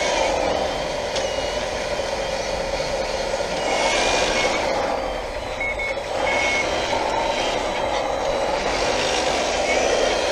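Radio-controlled 1/14-scale hydraulic wheel loader working: a steady whine from its motors and hydraulic pump that rises and falls in pitch with the load, with a few short high reversing beeps about four and six seconds in.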